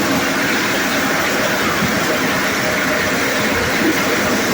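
Conveyor-fed corn sheller machine running steadily, a loud, even mechanical noise.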